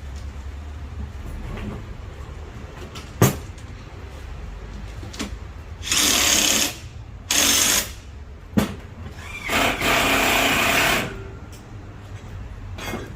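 Power drill run in three bursts, the last and longest about a second and a half, as holes are drilled for ceiling anchors; two sharp knocks come before the bursts and between them.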